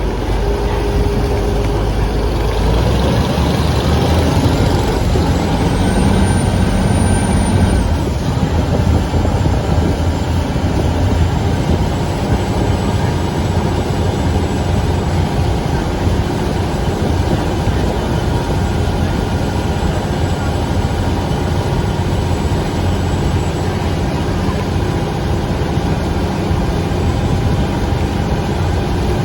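Steady vehicle engine noise with a deep rumble. A high whine rises over a few seconds and cuts off about eight seconds in.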